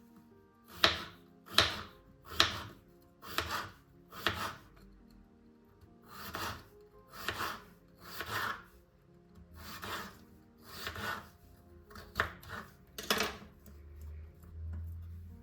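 A knife cutting food on a cutting board in slow, regular strokes about one a second, over soft background music.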